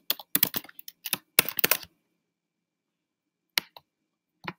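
Computer keyboard being typed on: a quick run of keystrokes for about two seconds, then a pause and two single clicks near the end.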